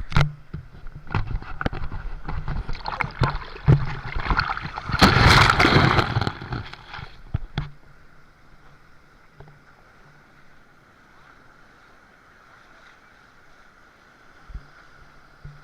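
Sea water splashing and sloshing close to the microphone, with many sharp splashes and a loud surge about five seconds in, dying away after about seven seconds to a faint steady hiss.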